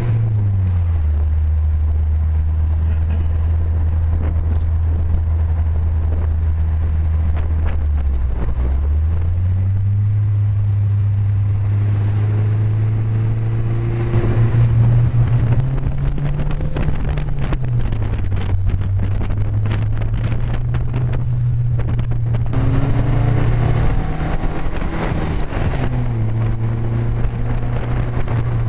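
Car engine running on the move, its note dropping about a second in, climbing back around nine seconds, then rising and falling a few more times with throttle and gear changes. Gusty wind noise lies over it through the middle of the stretch.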